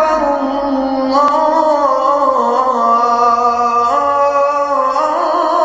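Vocal music: a voice singing long held notes that slide from one pitch to the next.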